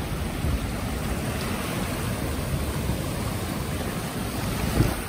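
Steady rush of wind buffeting the microphone over river waves breaking on the shore, with a single low thump near the end.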